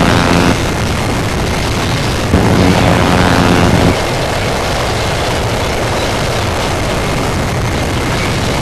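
Harsh noise music: a dense wall of distorted static and low rumble, with a louder buzzing drone in the first half second and again for about a second and a half starting a little past two seconds in.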